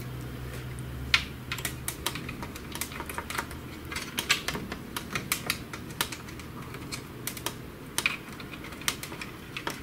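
Irregular light clicks and taps of plastic parts and wiring connectors being handled and plugged in by hand inside a Samsung ML-1210 laser printer.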